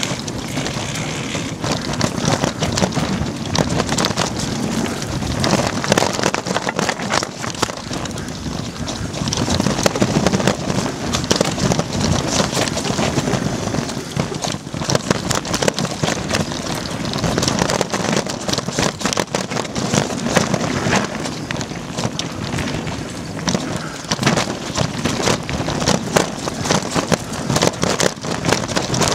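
Mountain bike descending a rough dirt forest trail, heard from an onboard camera: constant rattling and knocking as the bike goes over roots and bumps, with tyre noise on the dirt and wind buffeting the microphone.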